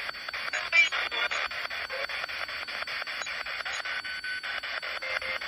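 Radio sweeping rapidly through frequencies, its static chopped into even pulses about nine times a second. Brief scraps of sound come through near a second in.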